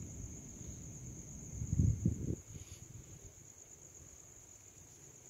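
Crickets chirring steadily in one continuous high-pitched trill, with low rumbling handling or movement noise that swells briefly about two seconds in.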